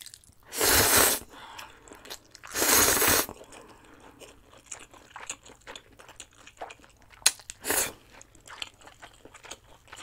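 A person slurping chewy instant ramen noodles into the mouth, twice loudly in the first few seconds and once more briefly near the end, with soft wet chewing between the slurps.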